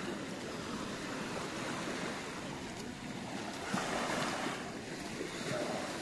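Small waves lapping and washing up a sandy beach: a steady surf hiss, with a louder wash about four seconds in.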